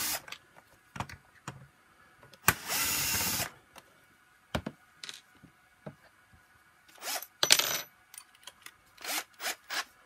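Cordless drill-driver running for about a second, backing out a screw that holds a wheel of a vacuum power nozzle, followed by light clicks and knocks of plastic parts and tools being handled.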